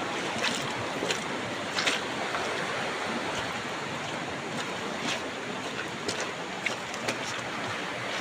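Steady rushing of river water, with a few short sharp snaps or clicks scattered through it.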